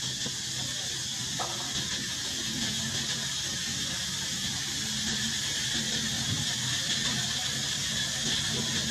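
Steady high-pitched hiss of outdoor background sound, unchanging throughout, with a faint low hum beneath it.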